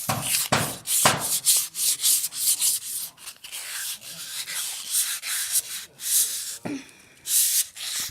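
Sandpaper rubbed by hand on scooter handlebars in quick back-and-forth strokes, smoothing off the old paint before priming. The strokes come fast at first, then slow, with a short lull about a second before the end followed by one more loud stroke.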